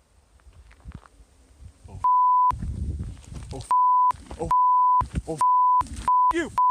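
Censor bleeps: a steady beep tone that cuts in about two seconds in and recurs five or six times, blanking out a person's shouted swearing, with bits of the shouting heard between the bleeps.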